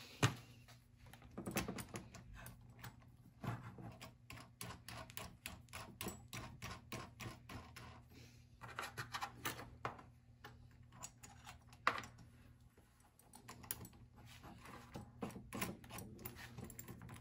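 Metal nuts being spun and fiddled by hand on threaded rods and bolts of a small metal frame: a run of rapid light metallic clicks and ticks, with a sharper knock just after the start and another about twelve seconds in.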